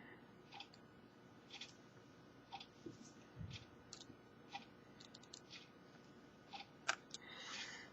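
Faint, irregular small clicks and ticks of a plastic pry tool working against a Samsung Galaxy S4's charger assembly and frame, with a sharper click near the end.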